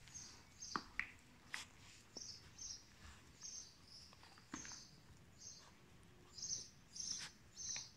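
Faint chirping of small birds: short high chirps repeated irregularly, one or two a second, with a few soft clicks among them.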